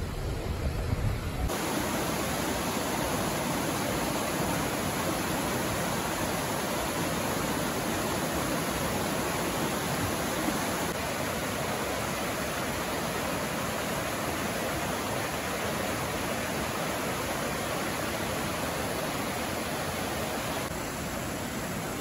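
Mountain stream rushing over rocks, a steady hiss of water. It cuts in sharply about a second and a half in, replacing the low rumble of a car driving.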